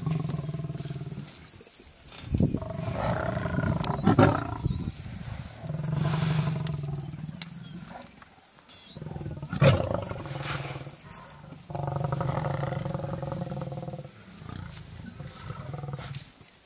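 Lionesses growling and snarling as they feed on a buffalo carcass, the threat sounds of big cats guarding and squabbling over a kill. Several drawn-out growls come in waves, broken by three sharp, louder snarls.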